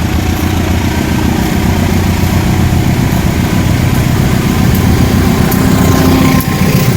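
Diesel engine of a GE locomotive running loud and steady under power, growing slightly louder, with a brief drop about six and a half seconds in.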